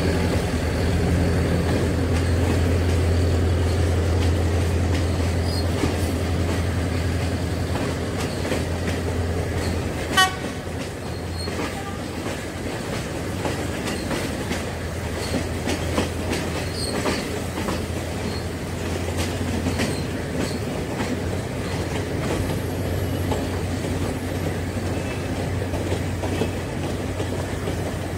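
A diesel passenger train running past on the track below, its wheels clicking steadily over the rail joints, with a low diesel engine hum that is strongest for the first ten seconds. About ten seconds in there is a single short horn toot.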